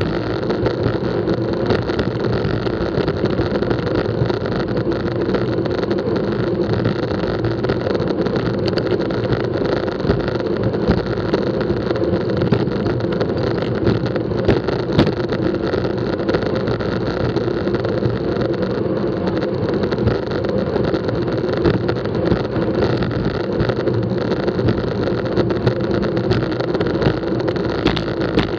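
Steady wind rush and road rumble on the microphone of an action camera moving at racing speed in a bunch of road bicycles, with a few small knocks.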